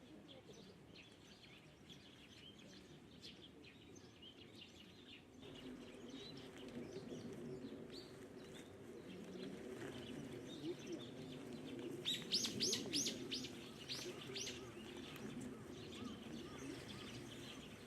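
Small songbirds giving thin, high chirping calls, with a quick run of about eight sharp falling notes about twelve seconds in. A low steady rumble lies underneath from about five seconds in.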